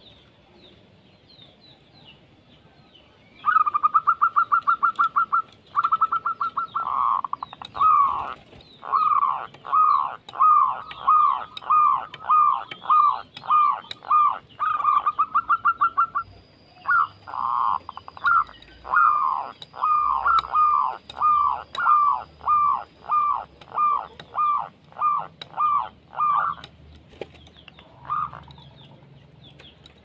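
Zebra dove singing: a fast run of notes, then a long series of loud, repeated notes, each falling in pitch, about two a second. Fainter high chirps of small birds sound behind.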